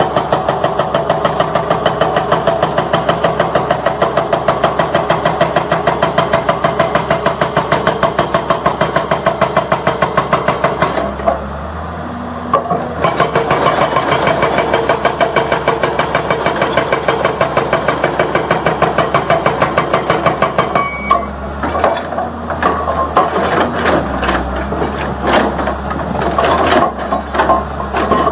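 Hydraulic rock breaker on an L&T-Komatsu PC200 excavator hammering boulders: a rapid, steady pounding of the steel chisel on rock over the running diesel engine. About eleven seconds in, the hammering stops for about two seconds, leaving only the engine. Over the last several seconds it goes unevenly, in short stops and starts.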